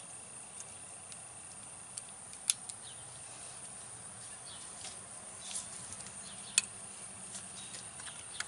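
Small metal parts clicking as snap-ring pliers work a snap ring and spacers onto the end of an air-brake S-cam shaft at the slack adjuster: scattered light clicks, two sharp ones about two and a half and six and a half seconds in, over a faint steady hiss.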